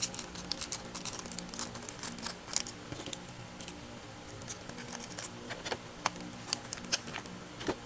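Packing materials being handled: an irregular run of small crackles and clicks from wrapping, snipping and crinkling, over faint background music.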